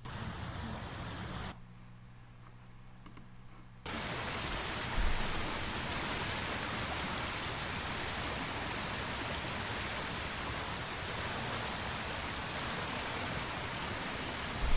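Flooded creek rushing steadily: an even hiss of fast-flowing water that cuts in suddenly about four seconds in, with a brief low bump soon after. Before that only a faint low hum.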